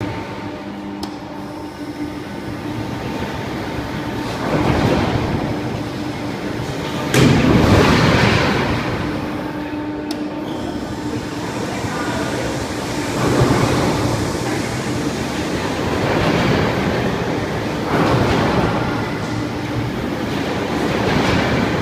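Flying-carpet amusement ride running on test: a steady drive hum under a rumbling, clattering swell every few seconds as the gondola swings around on its arms, the loudest swell setting in suddenly about seven seconds in.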